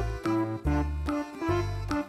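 Background music only: a light children's tune of short plucked or keyboard notes over a bass line with a steady beat.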